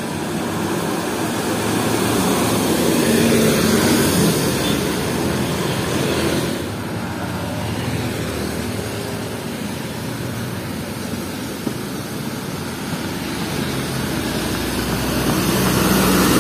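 Road traffic going by: engine and tyre noise that swells as vehicles pass, loudest about three to four seconds in and again near the end.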